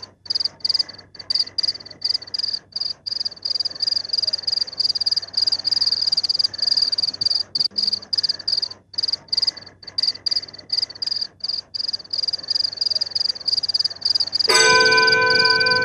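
Crickets chirping in a steady high trill, broken by many short gaps. Near the end a bell-like chime with several ringing tones comes in suddenly.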